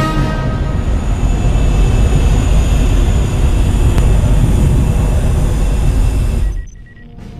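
Jet engine noise of a pair of MiG-29 fighters flying past, as a film sound effect: a loud, steady rush with a deep rumble and a faint high whine, cutting off suddenly about six and a half seconds in.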